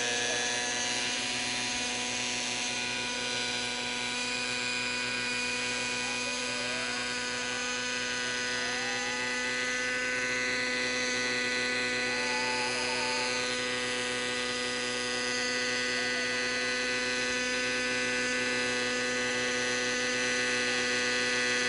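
Raptor 50 radio-controlled model helicopter's two-stroke nitro glow engine and rotor running at a steady, high-pitched buzz with no change in speed.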